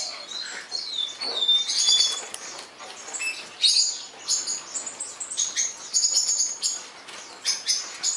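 Female blue-crowned hanging parrot (serindit) calling busily: rapid clusters of sharp, high-pitched chirps and squeaks, with a few short whistled notes in the first couple of seconds. The sound cuts off suddenly at the end.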